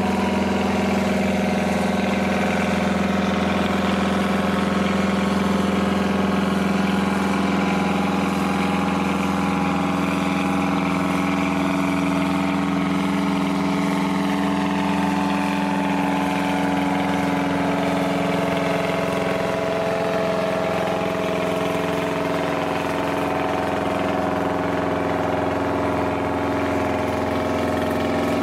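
John Deere farm tractor's engine running at a steady low speed, a constant drone whose pitch hardly changes.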